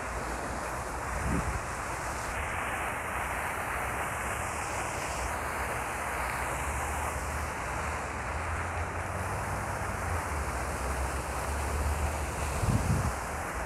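Rows of fountain jets falling into a shallow pool: a steady rushing hiss of splashing water. Wind rumbles on the microphone, with a low bump about a second in and a louder one near the end.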